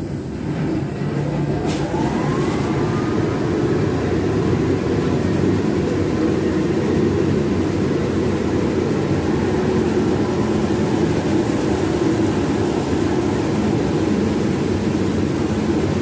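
Wheel washing machine running: a motor spins up with a faint rising whine over the first few seconds, under a loud, steady low wash noise.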